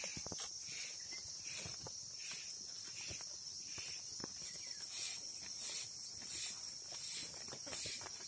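Insects trilling steadily, with a pulsing chirp repeating about twice a second, over scattered light clicks and rustles of goats moving on dry straw and dirt.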